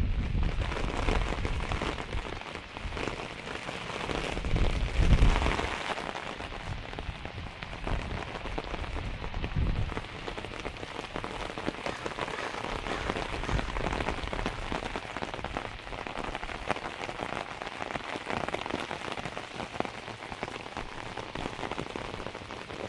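Steady rain pattering on wet pavement and puddles, a dense hiss of drops. A few brief low rumbles cut in near the start and around five and ten seconds.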